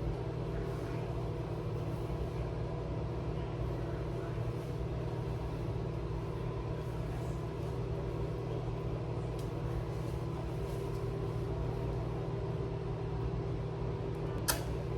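A steady low mechanical hum with several fixed tones, and a sharp click near the end.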